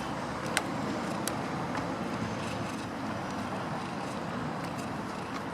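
Steady outdoor background noise with a few sharp clicks, the loudest about half a second in and another about a second later.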